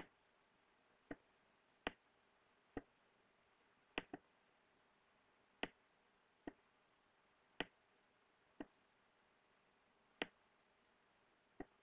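Computer mouse button clicking, about a dozen sharp single clicks at irregular intervals of roughly a second, two of them close together about four seconds in, as anchor points are placed with a drawing tool.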